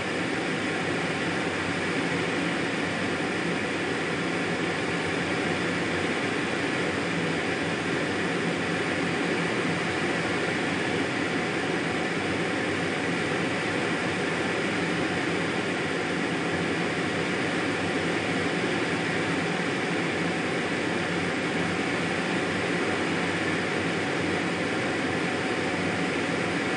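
Jet engine and cockpit airflow heard from inside the cockpit of a jet in flight: a steady rushing hiss with a faint constant whine, unchanging throughout.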